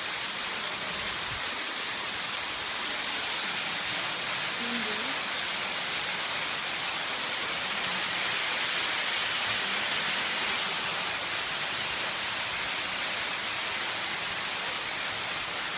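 Steady rushing of water in a cave stream, an even hiss that holds level without a break.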